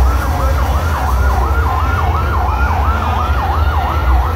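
Ambulance siren in a fast yelp, its pitch sweeping up and down about three times a second, over a steady low hum.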